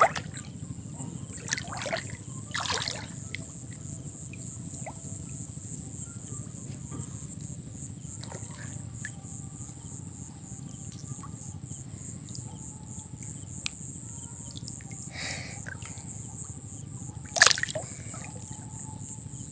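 Steady high-pitched chirring of crickets over a low rush of water, broken by a few splashes and sloshes of water, the loudest about three-quarters of the way through.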